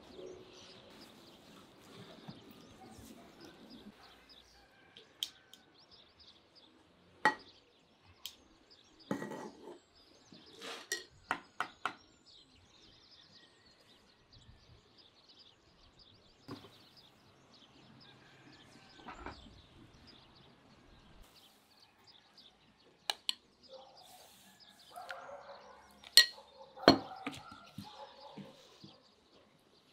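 Intermittent clinks and knocks of cooking utensils and dishes, with a quick run of several around the middle and two sharp ones near the end.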